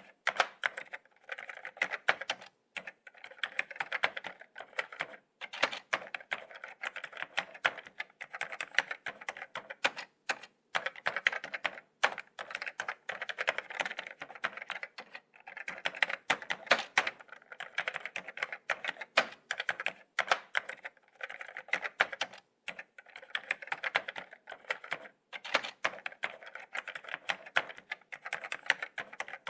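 Laptop keyboard being typed on continuously: quick, irregular key clicks with brief pauses now and then.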